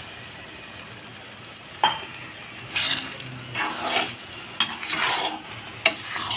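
Metal spatula stirring and scraping milk-soaked vermicelli around a pan. Over a faint steady hiss, a sharp clink comes about two seconds in, followed by a run of scraping strokes.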